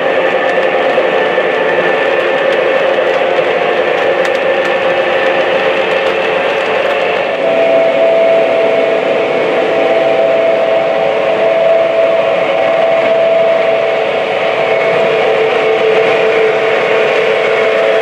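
Three-rail O-scale model trains running on the track: a steady rolling of wheels on rail, mixed with electronic diesel engine sound from the locomotives, with a held tone coming in about seven and a half seconds in.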